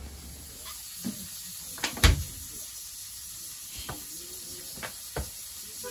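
A steady faint hiss of background noise with a few scattered sharp knocks and clicks, the sharpest about two seconds in.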